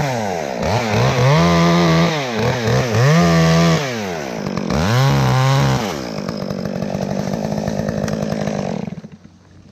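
Chainsaw cutting through a sweet gum limb, its engine surging up and down several times, then running steadier at a lower pitch before dropping off about nine seconds in.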